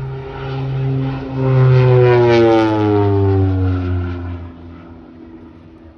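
OV-10 Bronco twin-turboprop flying past low: its propeller drone swells to a peak about two seconds in, then drops in pitch and fades away as it passes.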